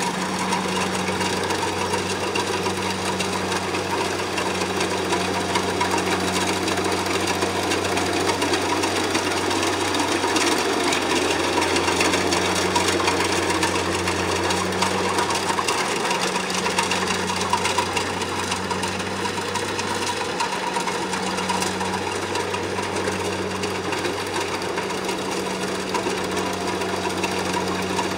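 Kubota combine harvester running steadily while cutting rice: a steady diesel engine drone under a rapid, continuous mechanical clatter from the cutting and threshing machinery. The low drone dips briefly twice.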